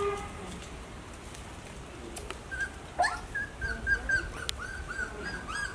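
Puppies whimpering and whining in a rapid string of short, high-pitched calls as they jostle to nurse from their mother, with a sharper rising yelp about three seconds in. The calls begin about halfway through.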